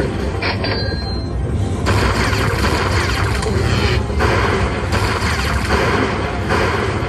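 Lightning Link slot machine's bonus-round sounds: electronic music with lightning-strike effects as each prize is collected and the win meter counts up.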